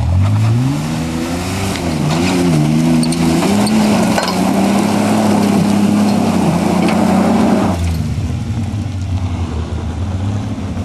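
Ford Ranger pickup's engine revving hard as it climbs a steep, loose dirt hill. The revs rise and waver, then are held high for several seconds as the tyres churn the dirt. The revs drop back sharply about eight seconds in.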